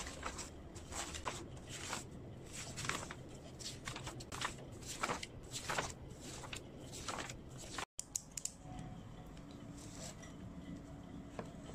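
Paper rustling as sheets of printed and handwritten study notes are leafed through, a quick run of crisp page-flip swishes. After a sudden cut about eight seconds in it goes quieter, with a few light clicks and a pen on a paper calendar.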